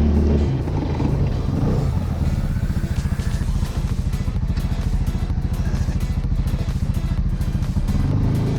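CFMoto ZForce 500 side-by-side's engine dropping to an evenly pulsing idle about half a second in, then picking up again near the end.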